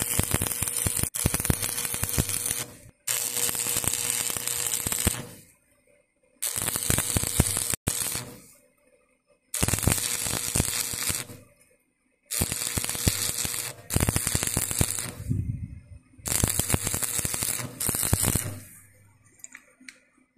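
Electric arc welding in about six bursts of one to three seconds each: a crackling sizzle while the arc is struck, stopping briefly between runs.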